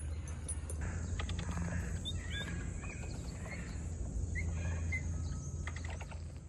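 Outdoor ambience with a steady low rumble and a handful of brief, high chirps in the middle, plus a few light clicks.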